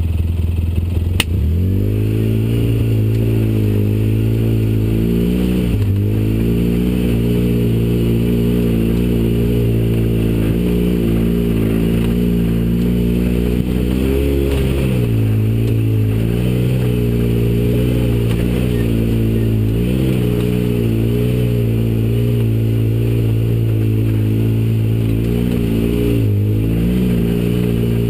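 Off-road vehicle's engine running at a steady, low crawling speed. It picks up in pitch about a second and a half in, then dips and picks up again a few times as the throttle is eased and reapplied. A single sharp click comes about a second in.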